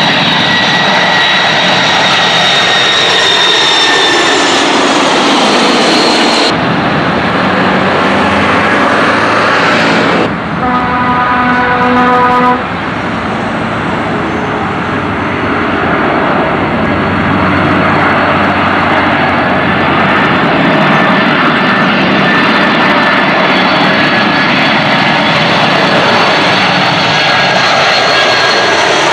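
Boeing 747 jet engines on final approach. The high whine falls in pitch as the first jumbo passes overhead, then gives way to the steady rumble of a KLM Boeing 747-400 coming in. The sound breaks at edits about six and ten seconds in, with a brief steady buzzing tone lasting about two seconds just after ten seconds.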